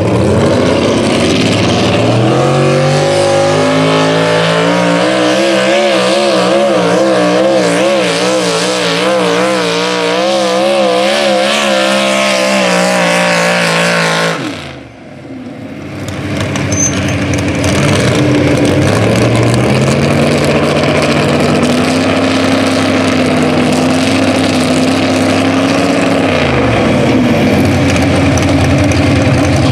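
Modified four-wheel-drive pulling trucks' engines at full throttle under load. The first winds up and holds a rapidly wavering high pitch, then drops away abruptly about halfway through as it is shut off. A second winds up, holds steady and dies down near the end.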